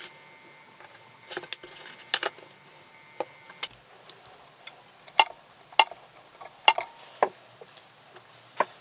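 Irregular sharp clicks and taps of hand tools and small metal parts being handled while a nickel-cadmium battery pack is worked on, about a dozen, the loudest in the middle.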